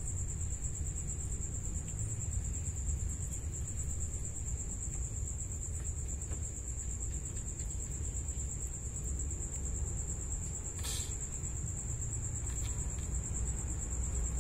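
A cricket trilling steadily at a high pitch, over a constant low rumble, with a faint click about eleven seconds in.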